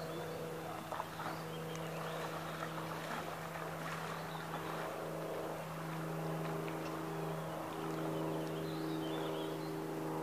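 Syma Century RC speedboat's small electric motor whining steadily at an even pitch as the boat runs across the water.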